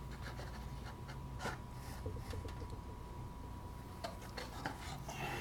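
Faint crinkling and rubbing of a foil trading-card pack wrapper being torn and peeled open by hands in nitrile gloves, with scattered small ticks.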